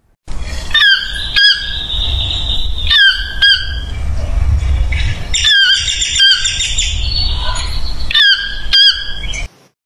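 Fiery-billed aracari calling: sharp, high squeaky notes, mostly in quick pairs, repeated about four times, over a low wind rumble on the microphone. The sound cuts off abruptly near the end.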